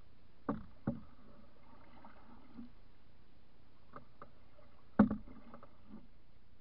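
Paddling a canoe: the wooden paddle knocks against the canoe several times between strokes, twice near the start and in a cluster around five seconds in, the loudest of them then, over faint water sounds.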